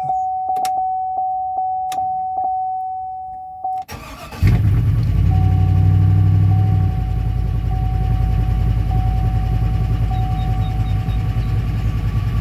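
A steady electronic warning tone with a few sharp clicks, then the LQ4 6.0-litre V8 cranks briefly and fires about four seconds in. It runs at a fast idle for a couple of seconds, then settles to a steady idle.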